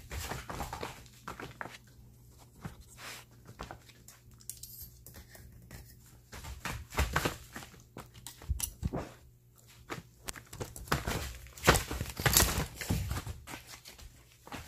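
Puppies scrambling and playing on a plastic tarp floor: crinkling and rustling of the tarp under their paws, with scattered knocks and scuffles that get louder in the second half.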